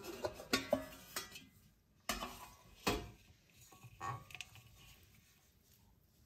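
A steel plate used as a lid is lifted off a metal mixing bowl and set down, clanking against metal a few times with brief ringing in the first three seconds. After that come fainter, scattered sounds of the soft dough being handled in the bowl.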